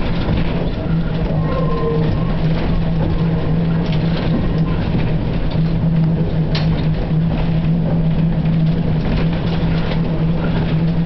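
Vintage electric tramcar running along its track, heard from inside its wooden saloon: a steady hum over the rumble of the wheels on the rails, with scattered clicks and rattles from the body, one sharper click about halfway through.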